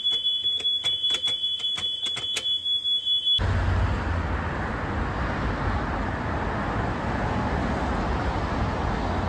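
A steady high-pitched alarm tone with a quick run of about ten clicks. It cuts off abruptly about three and a half seconds in, and steady city street noise with a low traffic rumble takes over.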